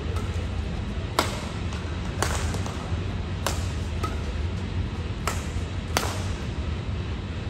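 Badminton rackets striking a shuttlecock in a rally: five sharp hits one to two seconds apart, over a steady low hum.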